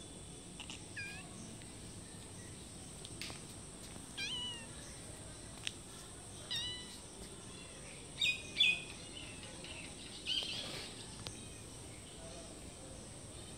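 Stray cats, a kitten among them, meowing for food in short, high-pitched mews: about six calls spaced a second or two apart, with a pair close together in the middle.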